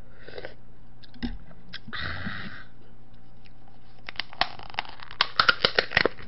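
Mouth sounds of tasting soup from a spoon, with a short hissy sip about two seconds in. Then comes a quick run of sharp clicks, the loudest sounds here, as utensils tap against the dishes.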